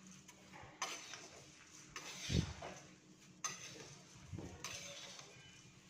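A steel spatula scraping along a metal kadhai as a large batch of poha (flattened rice) is stirred and turned over while it roasts, about four strokes, the loudest about two seconds in with a dull thump.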